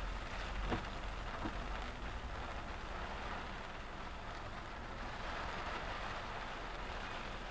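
Rain falling on a moving car, heard from a dashcam inside the cabin: a steady hiss over a low engine and road rumble, with a few brief taps in the first second and a half.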